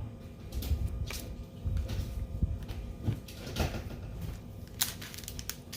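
Soft handling noises of trading cards and packs being moved about on a table: low taps and bumps with a few sharp clicks, one about a second in and another near the end.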